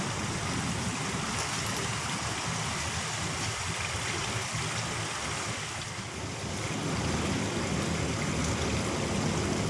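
River water rushing steadily over a low concrete weir, a continuous even splashing roar.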